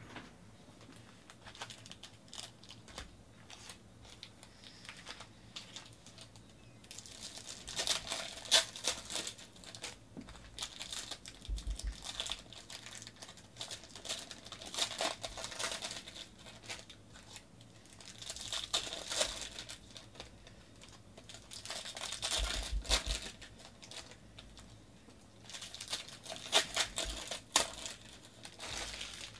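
Foil trading-card pack wrappers being torn open and crumpled, in repeated crinkling bursts of a second or more with sharp crackles, starting about seven seconds in. Before that there are only light clicks of handling.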